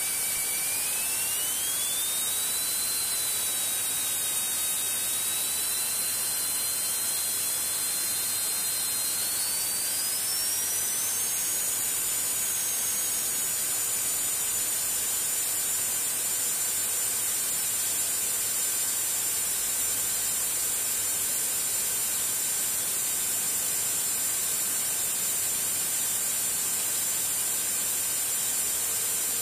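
Diamond DA42's twin diesel engines running at takeoff power during the takeoff roll, heard as a steady rushing hiss. A thin whine rises in pitch over the first dozen seconds as power comes up, then holds steady.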